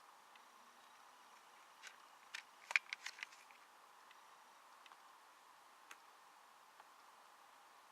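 Faint, scattered clicks of laptop keys, with a quick run of about six clicks around three seconds in and single clicks before and after.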